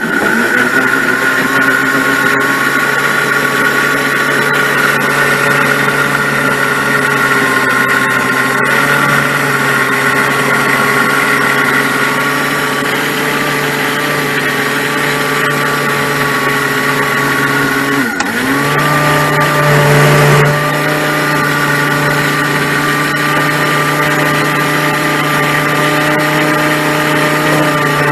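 Electric countertop blender running steadily, grinding a salsa of roasted tomatoes, tomatillos, dried chiles and garlic. About 18 seconds in, the motor dips briefly and comes back at a slightly higher pitch.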